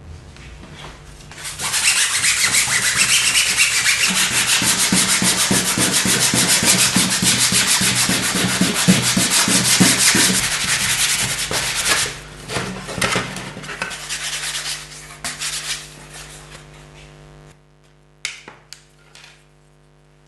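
Sandpaper scuffing rapidly back and forth over the face of a plate, roughening it so glue will grip. It runs steadily from about a second and a half in, breaks into a few shorter, separate strokes, and has died away by about two-thirds of the way through. A few light clicks follow near the end.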